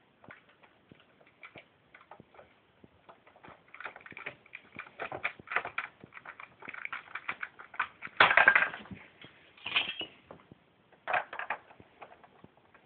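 Plastic Lego pieces clicking and rattling as they are handled: scattered single clicks at first, then a denser run of clatter from about four seconds in, with the loudest clatter a little past the middle.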